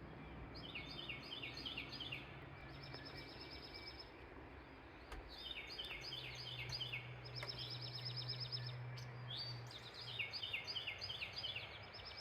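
A songbird singing, repeating a phrase of quick stepped notes and trills over and over, with a low steady hum underneath for much of the time.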